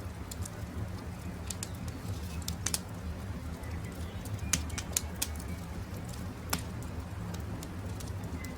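Campfire crackling, with sharp pops scattered irregularly (the loudest about halfway through), over a steady low rumble. Faint bird calls come and go in the background.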